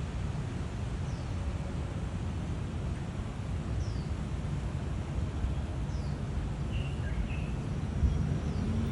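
Outdoor ambience: a steady low rumble with faint bird calls over it, short high whistles sliding downward about every two seconds and a few brief chirps near the end. A low thump comes about eight seconds in.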